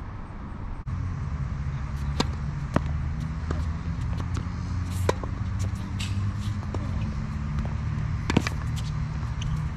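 Tennis rally on a hard court: sharp pops of racket strings striking the ball and of the ball bouncing, one every second or so, the loudest near the end as the near player hits. A steady low rumble runs underneath.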